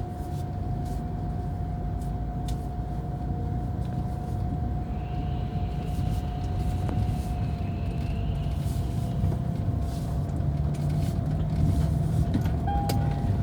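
Car engine and road noise heard from inside the cabin while driving: a steady low rumble with a faint steady whine.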